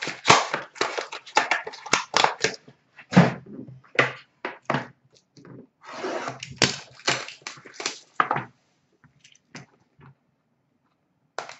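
Hockey card packaging being opened and handled: a busy run of irregular crackling, crinkling and tearing that thins out to a few scattered clicks near the end.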